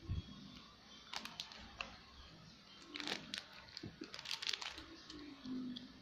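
Close-miked chewing of crunchy food, with clusters of crisp crackles about a second in, around three seconds and again around four and a half seconds.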